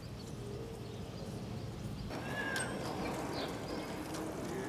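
Low rumbling, then from about two seconds in inline skates rolling on an asphalt road: a light hiss of wheels with scattered clicks of the skaters' strides, and one brief high chirp.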